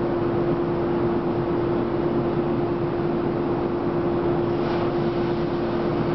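A local electric train standing at the platform with its onboard equipment running: a steady hum with one held tone over a constant whir.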